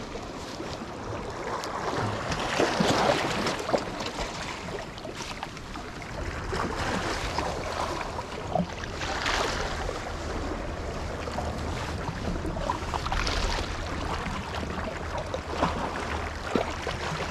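Small waves washing and splashing against the rocks of a harbour jetty, coming in surges every few seconds, with wind rumbling on the microphone.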